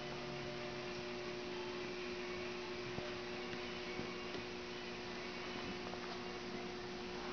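Steady low hum with an even background hiss, broken only by a few faint clicks.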